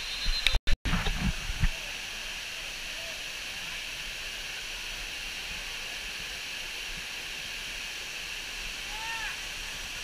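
Water rushing steadily over a tiered rock waterfall, with a few loud knocks and a brief cut-out in the sound in the first two seconds.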